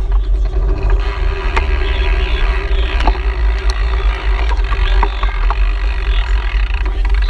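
Wind buffeting a GoPro's microphone while riding a bicycle: a loud, steady deep rumble with a faint steady hum and a few scattered clicks.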